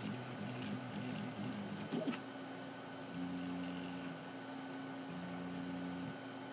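RepRap 3D printer's stepper motors whining as the print head lays down a small calibration cube: short tones that change pitch quickly for the first two seconds, a click about two seconds in, then longer steady tones that step to a new pitch about once a second.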